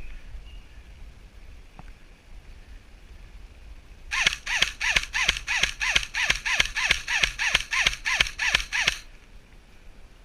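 Electric airsoft replica firing a sustained burst of about seventeen evenly spaced shots, three to four a second, each with a falling whine, starting about four seconds in and stopping about five seconds later.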